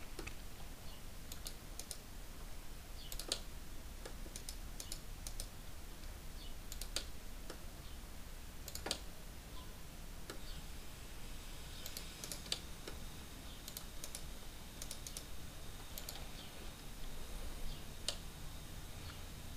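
Faint, irregular clicks of a computer keyboard and mouse, coming singly and in small clusters with pauses between, over a low steady hum.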